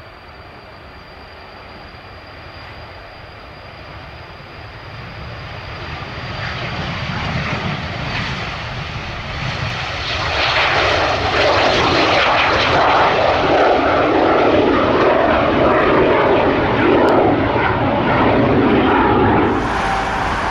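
Cessna Citation CJ4 (525C) business jet's twin turbofans at takeoff power: a high whine over a low rumble, swelling about ten seconds in into a loud roar as the jet lifts off. The sound changes abruptly shortly before the end.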